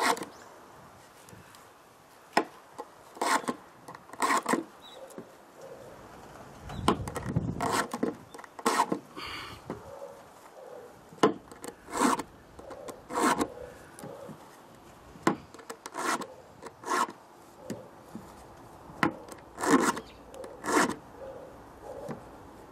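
A round chainsaw file rasping across the cutter teeth of a saw chain: short strokes, often two or three in a row with pauses between, as the right-side cutters are sharpened one by one.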